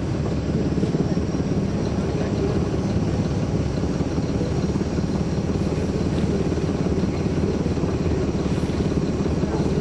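Caterpillar C13 diesel engine of a NABI 416.15 transit bus running steadily, heard from inside the passenger cabin.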